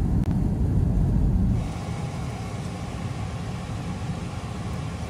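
Low rumble of road and wind noise from a moving car. About a second and a half in, it drops to a quieter steady hum of a car standing still.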